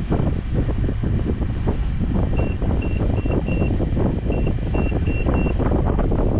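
Wind buffeting the microphone aboard a catamaran under power, with eight short electronic beeps in two quick groups of four about two seconds in: the key beeps of the autopilot's course-change buttons as the boat is turned onto a new heading.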